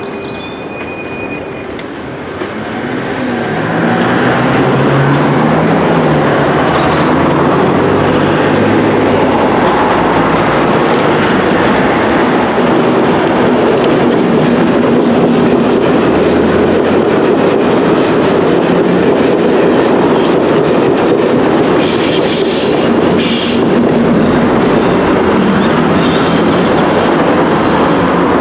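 A train of Class 73/1 electro-diesel locomotives and 4TC coaching stock approaching and passing close by: the sound swells about three seconds in to a steady, loud rumble of wheels on rails. Late in the pass there is a short burst of high-pitched metallic noise from the wheels.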